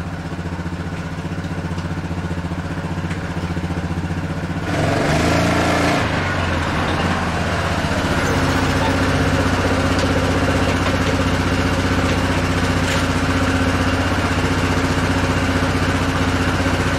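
2002 Yamaha Grizzly 660's single-cylinder four-stroke engine idling, then revved about five seconds in as the quad is ridden. It settles into a steady, louder run without cutting out.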